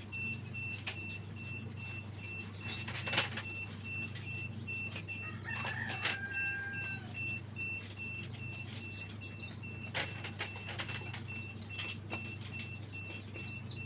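A rooster crows once about halfway through, over a steady low hum. A faint high beep pulses throughout, and a few sharp clicks and knocks are heard.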